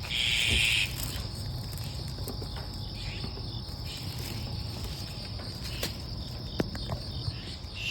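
Insects calling steadily in a continuous high-pitched drone, with a short, louder hiss in the first second and a few faint clicks later on.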